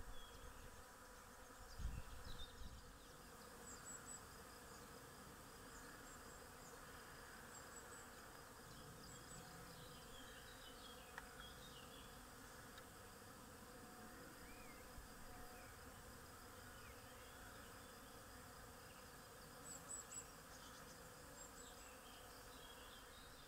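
A swarm of honeybees buzzing in the air around its cluster: a faint, steady hum of many wings, the sound of a colony that has just swarmed.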